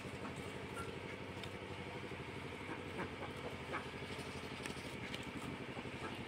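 A small engine running steadily in the background with a fast, even pulse, with a few light clicks over it.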